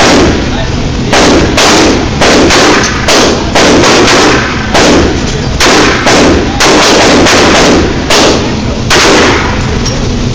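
Glock pistol firing a long string of about fifteen shots, roughly two a second with a couple of short pauses, each shot very loud.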